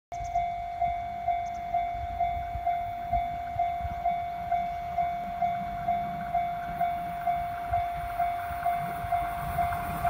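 Japanese level-crossing warning bell ringing: an electronic ding repeating evenly about twice a second, the signal that a train is approaching the crossing.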